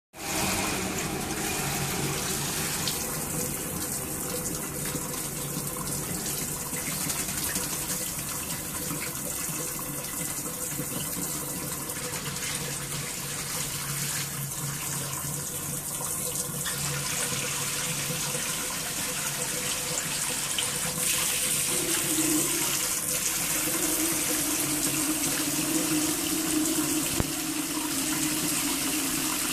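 Water running in a steady hissing stream for a pet black-capped lory's bath, growing a little louder and brighter about two-thirds of the way in.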